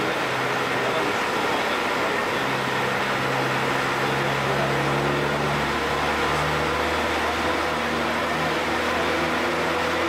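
Vehicle engine running at low speed with steady tyre noise on asphalt, a continuous drone whose engine note steps up and down in pitch a few times.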